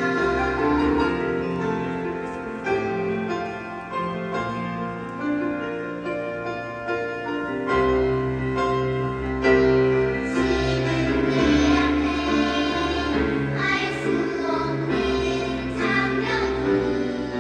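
Children's choir singing over instrumental accompaniment; the accompaniment fills out with a stronger bass about eight seconds in.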